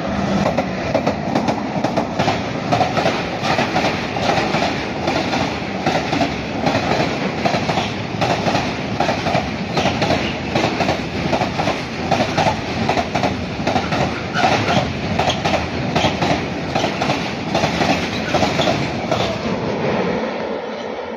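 Freight train of tank wagons passing close at speed: a steady rumble with rapid clatter of wheels over the rail joints, fading near the end as the last wagons go by.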